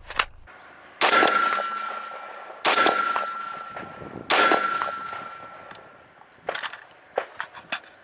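Three single shots from an M16A2-pattern AR-15 rifle in 5.56 mm, fired about a second and a half apart in slow aimed fire. Each shot has a long echoing tail, and a steady ringing tone carries under them. A few light clicks follow near the end.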